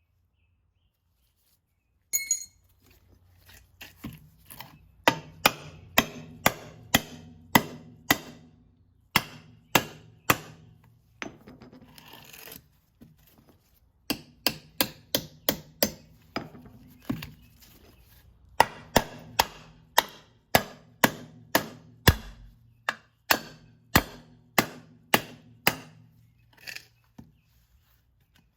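Repeated hammer blows striking a Krate Tactical OTF knife, about two sharp strikes a second with a pause midway, beating on it to break it apart.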